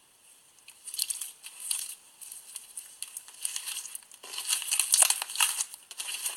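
Clear slime mixed with plastic charms being squeezed and played with by hand, crackling and clicking, starting about a second in and getting busier in the second half.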